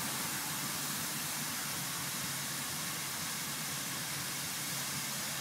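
Compact tractor with a rear sweeper unit running: a steady hiss over a faint low engine hum.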